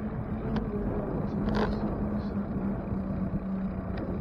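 Riding noise picked up by a bicycle-mounted camera: a low rumble of road and wind with a steady hum and a few short clicks and rattles, the largest about a second and a half in.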